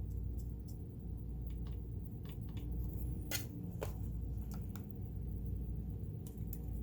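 Scattered light clicks and scratches of metal parts inside a sewing machine being wiped clean by hand with a cotton swab, over a steady low hum.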